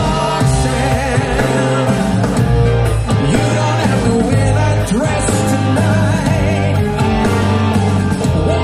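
A live rock band playing, with drums, a steady bass line and electric guitars, behind a man singing into a microphone.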